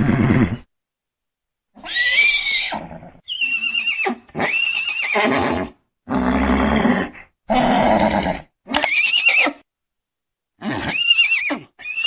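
Horses whinnying and neighing: about nine separate calls, each cut off by silence, some high and wavering in pitch, others lower and rougher.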